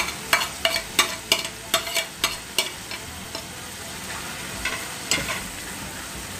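A spatula clicking against the pan in quick strokes, about three a second for the first two and a half seconds, with a few more clicks around five seconds in. Underneath, thick baby corn masala gravy sizzles steadily as it is stirred over the heat.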